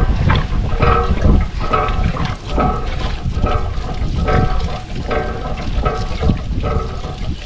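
Hand water pump being worked, its handle squeaking about twice a second, with water gushing and splashing out.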